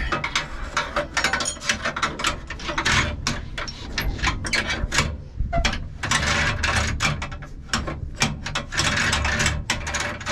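Shift lever of a John Deere Power Shift tractor being worked back and forth through its quadrant, clicking and clunking through the gear positions and into park. The shift linkage has just been repaired so that it goes into park easily.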